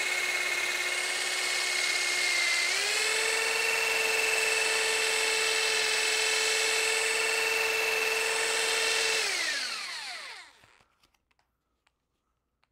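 Electric drill spinning an aluminium bicycle seatpost chucked in it, while box board loaded with polishing compound is pressed against the post: a steady motor whine over a hiss. The pitch steps up a little under three seconds in as the drill speeds up. Near the end the trigger is released and the drill winds down to a stop.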